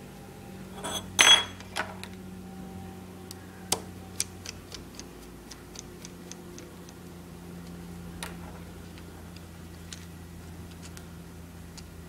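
A sharp metallic clink about a second in as a small precision screwdriver is picked up, then a run of small, light clicks as it works the tiny screws out of an iPod Nano's circuit board, over a steady low hum.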